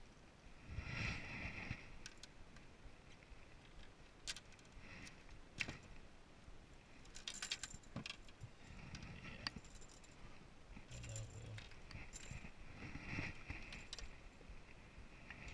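Fishing rods and spinning reels being handled in a bass boat: irregular light clinks, clicks and knocks of rod and reel against the boat's seats and rod storage, with a few short rattling clatters.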